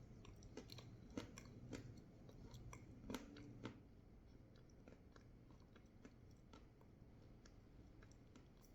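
Close-miked chewing of crunchy food: sharp crunches come thick and loudest in the first four seconds, then thin out to fewer, softer crackles.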